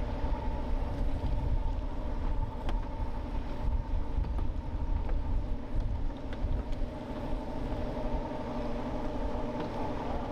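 Motorboat engine idling steadily, with a low rumble underneath.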